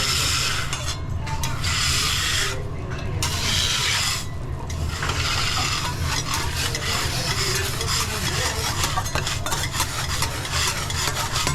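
Metal spatula scraping and wiping across a hot steel teppanyaki griddle as it is cleaned with oil, with some sizzling: three long strokes first, then quicker scraping with small clinks, over a steady low hum.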